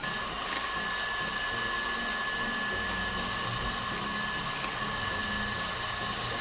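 Electric mixer running steadily with a high whine, beating eggs and powdered sugar together into cake batter.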